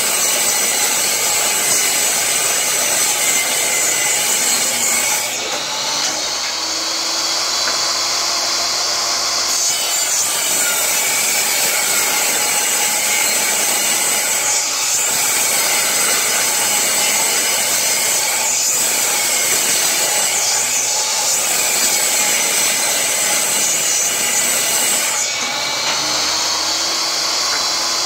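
Portable table saw running and ripping an old pressure-treated board lengthwise, the blade cutting through the wood. The sound of the cut changes every few seconds as the board is pushed along.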